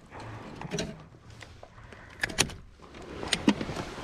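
A few sharp clicks and knocks of fishing gear handled against a plastic kayak hull while a crappie is swung aboard and unhooked, coming in small clusters about a second in, around two and a half seconds in, and near the end.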